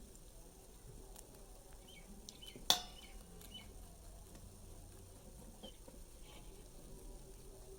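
Low background hiss with one sharp click a little under three seconds in, and a few faint, short, high chirps around it.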